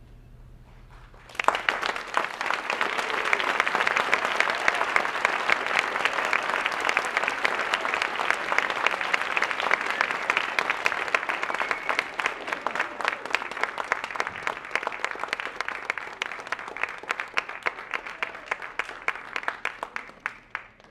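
Theatre audience applauding. The applause breaks out suddenly about a second in, holds as dense clapping, then thins to scattered claps near the end.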